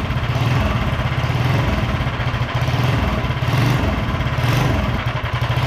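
Predator 212 single-cylinder mini bike engine running steadily, just started by a spring-loaded wind-up starter.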